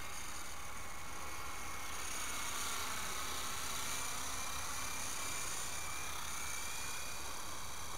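Small electric RC helicopter, an E-flite CX3 coaxial, whining in flight, its pitch wavering up and down and growing louder in the middle as it passes close, over a steady hiss.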